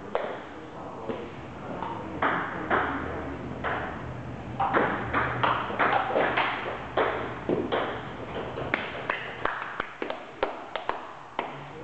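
Table tennis rally: the celluloid ball clicks off paddles and the table in quick sharp ticks. The hits are sparse at first, then come about two to three a second from about five seconds in.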